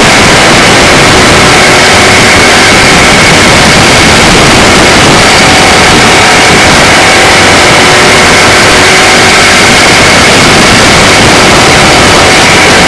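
Engine and wind noise of a small micro-d race car heard from an onboard camera, loud and distorted, with a steady drone through the whole lap section.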